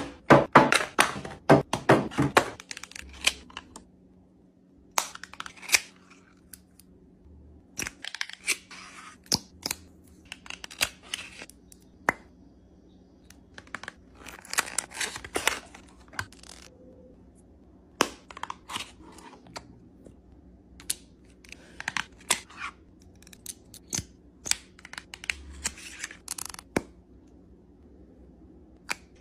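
Cardboard makeup boxes and packaging being handled, set down and opened: short rustling, scraping and tearing bursts with sharp clicks and taps, spaced out with pauses, over a faint steady hum.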